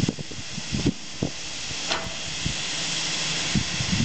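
Steam hissing steadily from the open cylinder drain cocks of a Swedish SJ class B steam locomotive, with irregular low thumps underneath.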